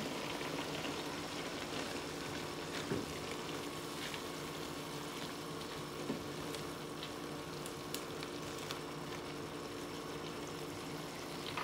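Thick blended-vegetable paste sizzling and bubbling in a non-stick karahi over a gas flame while its water cooks off, with a few light ticks and scrapes of a silicone spatula stirring it so it doesn't catch on the bottom.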